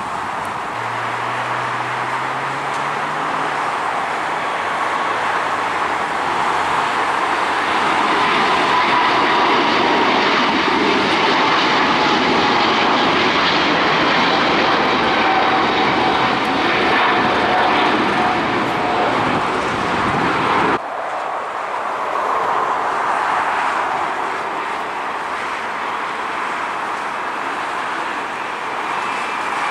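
Jet airliner engines at takeoff power: a Boeing 777's roar builds and holds as it climbs out, with a slowly falling whine. About two-thirds through it cuts off abruptly, and an Airbus A321's engines take over as it lifts off.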